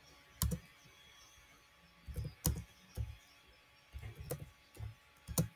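Typing on a computer keyboard: about ten sharp keystrokes in uneven clusters, a single one near the start, then bursts of several keys with short pauses between.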